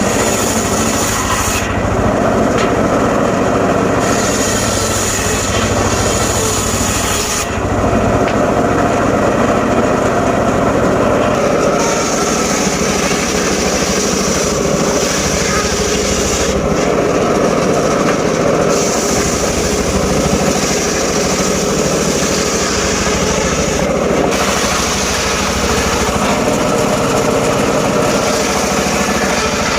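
An engine-driven saw running steadily while cutting teak wood, with a rasping hiss that comes and goes in spells of a few seconds as the blade works through the timber.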